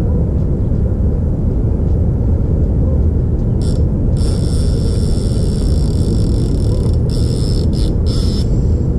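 Wind buffeting the camera's microphone: a loud, steady low rumble. From about four seconds in, a faint high buzz comes and goes over it.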